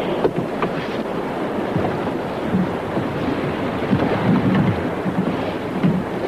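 Sea surf washing onto a beach, with wind buffeting the microphone: a steady rushing noise with a few brief low thuds.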